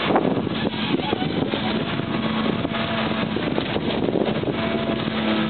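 Tigercat tracked carrier's diesel engine running steadily under load with its hydraulics whining, working a TH575 processing head; a higher hydraulic tone joins about four and a half seconds in, with scattered light knocks.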